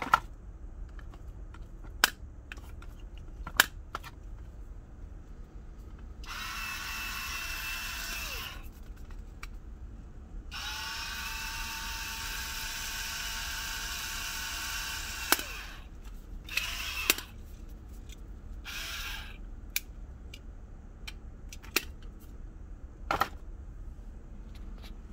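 Small electric motor of a salt and pepper mill running in four bursts, the longest about five seconds, each ending with a falling whine as it spins down. Sharp clicks and knocks of the mills being handled come between the runs.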